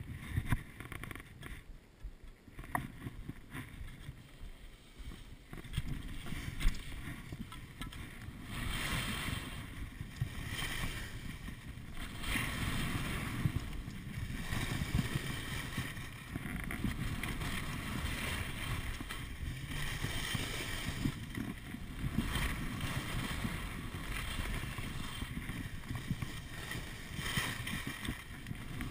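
Skis scraping and hissing over packed snow through a run of turns, the noise swelling and easing every couple of seconds, with wind buffeting the microphone. Quieter at first, louder from about eight seconds in.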